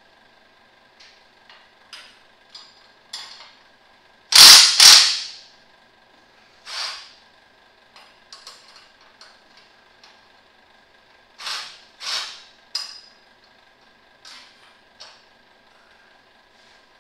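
Hand-tool work on a heavy truck's chassis: scattered clicks and short metallic rasps. The loudest is a pair of sharp rasps a little before the middle, with another cluster about three quarters through.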